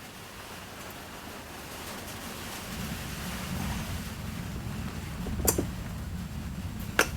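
A low rumble that grows louder about three seconds in, with two sharp knocks about a second and a half apart near the end.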